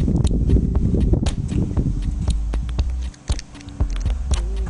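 Small metallic clicks and scrapes of brass cartridges being pushed one by one into a rifle magazine by hand, over a steady low rumble that drops away briefly a little past the middle.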